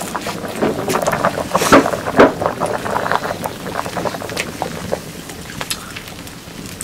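Cooking-work sounds: irregular knocks and clatter of utensils over a steady hiss, busiest in the first few seconds and thinning out toward the end.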